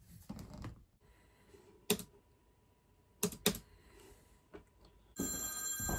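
A few separate sharp clicks, like keystrokes on a computer keyboard. About five seconds in, a telephone starts ringing, loud and steady.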